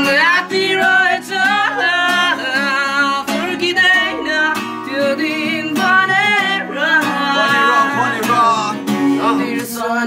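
Acoustic guitar played live with a young male voice singing a melody over it.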